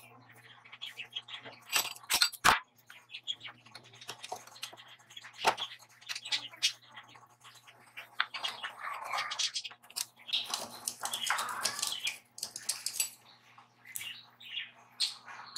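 Homemade motorcycle-chain scroll bender in use: a flat steel bar being wound around the former, with irregular metallic clicks and knocks from the chain links and bar, and a longer stretch of scraping and squeaking partway through as the bar bends.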